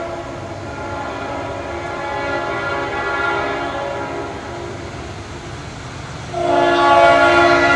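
Approaching locomotive's multi-note air horn sounding long blasts for a grade crossing, with a much louder blast starting about six seconds in as the train nears.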